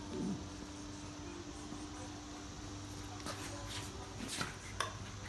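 Steady low hum, with a few light clicks and knocks between about three and five seconds in as a long metal rod sets a red-hot pot, fresh from the kiln, down on a board.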